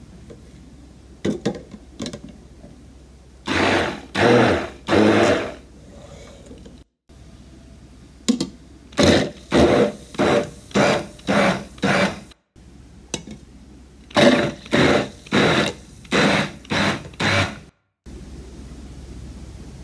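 Handheld immersion blender run in short pulses of about half a second each, puréeing pickles in liquid in a tall cup. The pulses come in three runs of several bursts each, every run breaking off abruptly.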